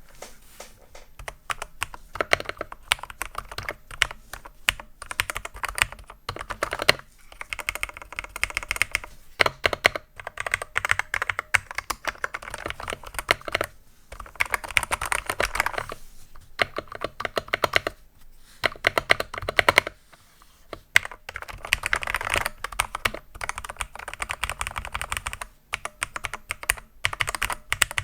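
Typing on an AKKO 3061S HE 60% keyboard with magnetic Hall-effect switches: fast runs of keystroke clicks and clacks, broken by short pauses every few seconds.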